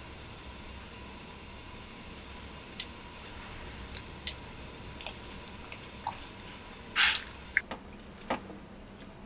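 Thin slices of beef dipped with chopsticks into a stainless steel pot of simmering water on a gas burner: a faint steady hiss with small clicks and drips, and a short louder splash about seven seconds in.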